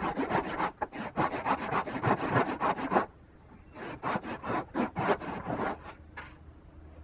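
Large hand saw cutting through a small wooden block with quick back-and-forth strokes while a bridle joint is cut. The sawing comes in two runs with a brief pause between them, and stops about six seconds in.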